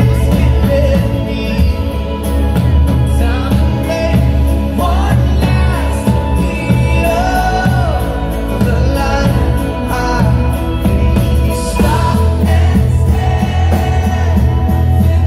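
A live pop-rock band playing with a singer, recorded from the audience in a large concert hall.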